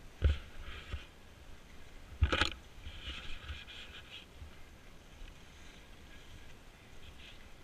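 Skis sliding and scraping through snow in uneven swishes while skiing downhill. There are low thumps over bumps, and one loud knock about two seconds in.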